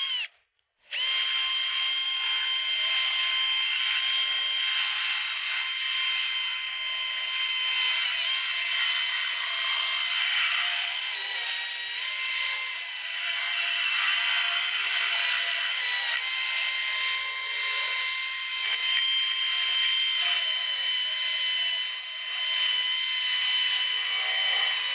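Handheld cordless power tool spinning a grinding bit with a steady high whine, smoothing rough edges on the ports of a cast-aluminium intake manifold. It stops briefly just after the start, then runs on with small dips as the bit is worked along the port edges.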